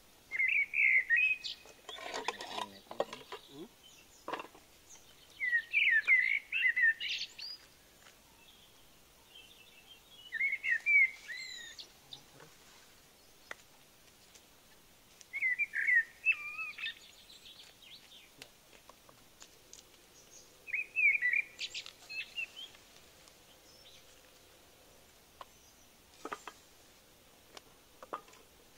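A bird singing the same short warbling phrase about every five seconds, five times. A few soft clicks and knocks come about two seconds in and again near the end.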